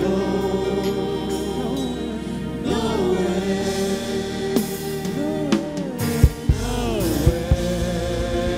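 Gospel worship music: sung notes held and gliding over sustained keyboard-like chords, with a few low thumps near the end.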